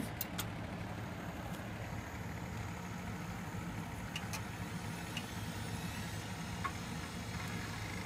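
HP Compaq D530 desktop computer powering up with a newly fitted hard drive: a steady machine hum from its fans and spinning drive, with a few faint ticks.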